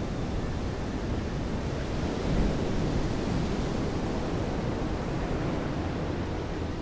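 Steady low rumbling noise with no tone in it, swelling slightly about two seconds in.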